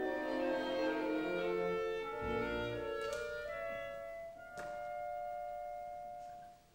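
Classical orchestral ballet music, a slow melody with a woodwind line over strings that settles on one long held note from about halfway and fades out near the end.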